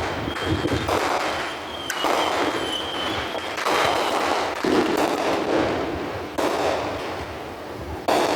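Fireworks going off: a string of about six bangs, each with a crackling tail, spaced a second or two apart. A steady high whistle from a whistling firework sounds over the first three seconds or so.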